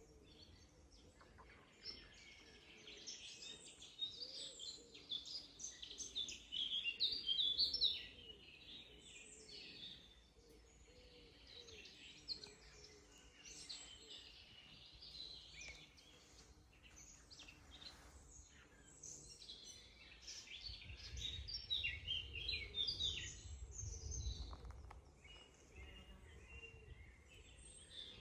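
Several forest songbirds singing over one another with many overlapping chirps and trills, busiest about two to eight seconds in and again around twenty seconds in. A low rumble runs underneath during the second spell.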